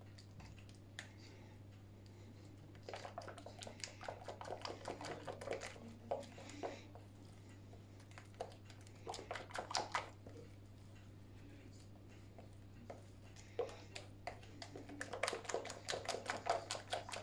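Yorkshire pudding batter being beaten by hand with a metal utensil in a mixing bowl: quick runs of light clicks and taps against the bowl in three spells, over a steady low hum.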